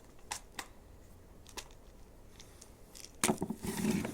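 Stiff plastic toy packaging being worked open by hand: a few sharp clicks, then a louder burst of clicking and crinkling near the end.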